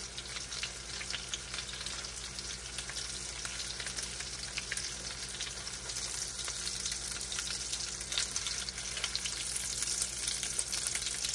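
Egg-battered chicken tenders frying in hot olive oil in a nonstick pan: a steady sizzle, dotted with many small crackling pops.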